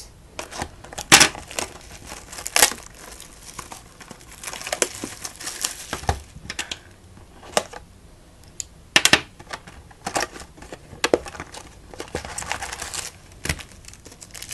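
Plastic and foil trading-card packaging being torn open and handled: irregular crinkling and sharp crackles as the wrappers of a baseball card box and its packs are ripped.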